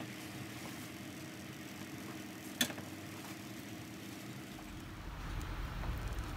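Quiet kitchen room tone with a steady low hum, broken by a single sharp click about two and a half seconds in. From about five seconds in, low rumbling handling noise comes in as the camera is moved close to the roast chicken.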